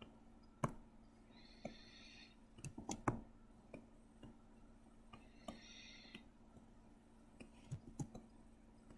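Scattered sharp clicks from computer input devices, about a dozen at irregular intervals, with two short scratchy sounds under a second long, about one and a half and five and a half seconds in.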